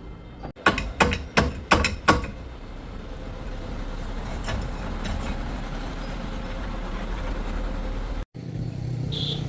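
Five sharp knocks in quick succession, then a vehicle engine running steadily. Near the end the sound cuts off abruptly and a different engine sound follows.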